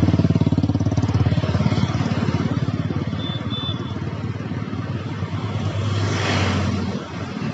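Road traffic: cars and motorcycles passing on a multi-lane road. One engine is loudest at the start and fades away over the first two seconds. A vehicle swishes past about six seconds in.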